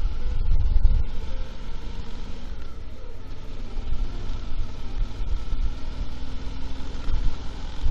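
Motorcycle engine running while riding, with heavy wind rumble on the microphone that is strongest in the first second.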